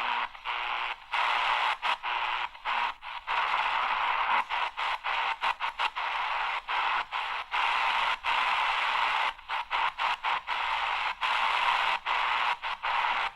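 AGPTEK R09 portable radio's speaker hissing with static between stations as it is tuned slowly across the shortwave band. The hiss cuts out briefly many times at irregular moments as the tuning steps along.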